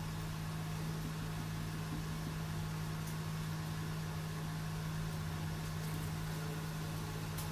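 A steady low-pitched machine hum under an even faint hiss, with a faint tick or two.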